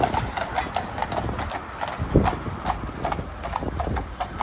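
Hooves of a pair of horses pulling a carriage clip-clopping on the paved road, about four hoofbeats a second, over the low rumble of city traffic.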